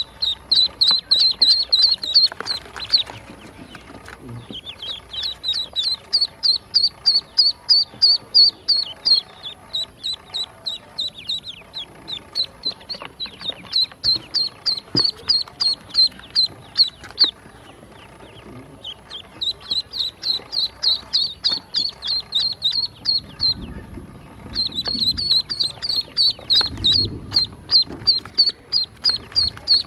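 Newly hatched ducklings peeping, a fast run of short high peeps about four or five a second, in bursts broken by short pauses.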